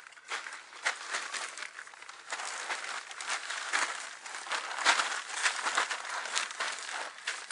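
Plastic moisture-barrier sheeting crinkling and rustling under hands and knees as a man crawls across it, in uneven bursts, the loudest about five seconds in.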